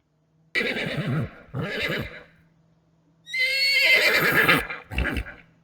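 A horse: two short breathy sounds, then a long whinny about three seconds in, ending with a brief low blow.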